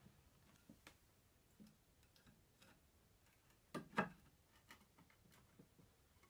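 Wooden rocking chair frame and rockers being handled during a dry fit: faint taps and clicks, then two sharp knocks close together about four seconds in, wood against wood.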